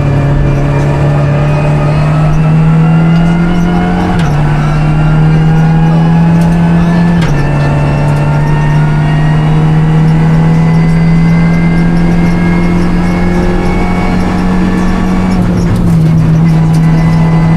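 Renault Clio Rally5's turbocharged four-cylinder engine pulling hard under load, heard from inside the cabin, its pitch climbing slowly between quick gear changes about four and seven seconds in, with a brief dip near the end.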